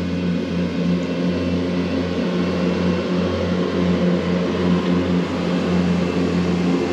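A motor running steadily with a low hum that wavers slightly in level.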